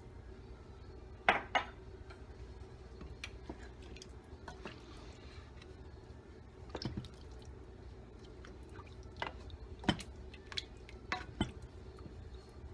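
Scattered clinks and knocks of kitchen utensils against a cooking pot, about a dozen separate hits with gaps between them, over a low steady hum.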